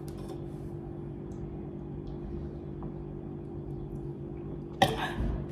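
A steady low hum made of several fixed tones, with a sharp knock near the end followed by a brief rustle.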